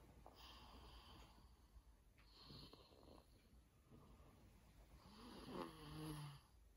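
Faint snoring breaths of a sleeper, three slow breaths. The last, about five seconds in, is the loudest and has a low hum in it.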